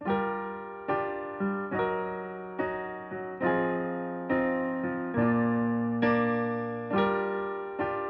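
Digital stage piano playing a slow solo introduction: the first chord comes out of silence, then a new chord is struck about once a second, each left to ring and fade.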